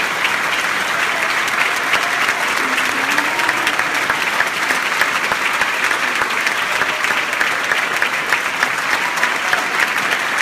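Theatre audience applauding steadily: many hands clapping in a dense, even patter that holds at one level.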